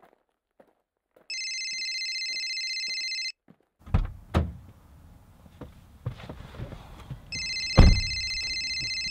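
A telephone ringing, a high trilling electronic ring sounding twice for about two seconds each time, some four seconds apart. Between the rings come heavy thumps as he gets into the car and pulls its door shut, and the loudest thump falls during the second ring.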